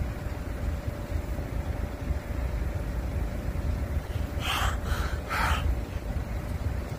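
Steady low rumble of vehicle noise, with a faint steady tone under it. About four and a half seconds in come three short breathy hisses.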